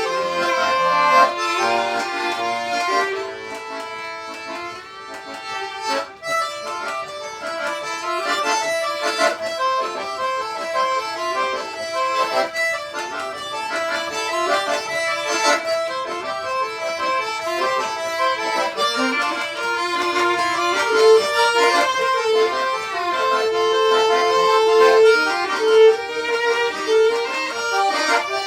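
Live folk music from a duo, with many quick melodic notes over held tones.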